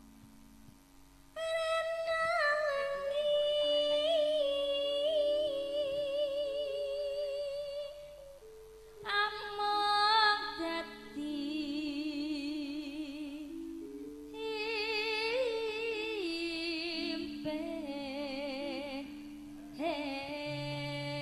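Female singer with a strong vibrato singing a campursari song in four long held phrases. Under her voice, an accompaniment moves in steady held notes.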